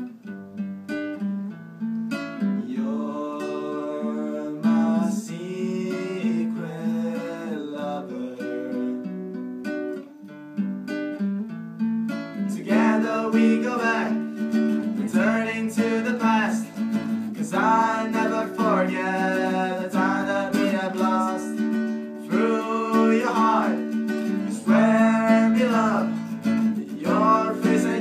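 A nylon-string classical guitar strummed in steady chords, with two young male voices singing a pop song over it. The singing grows louder about twelve seconds in.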